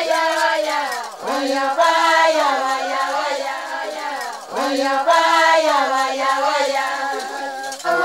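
A group of voices chanting together in long, sliding phrases, each phrase starting with a downward swoop, with short breaks about a second in and again just past the middle.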